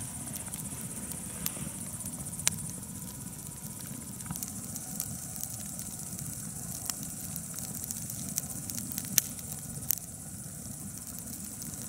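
Campfire crackling, with scattered sharp pops over a low steady rumble, while crickets chirp steadily.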